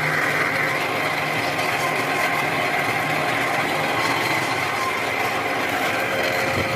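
Metalworking machinery in a machine shop running steadily: a constant low hum with a higher whine above it, unchanging throughout.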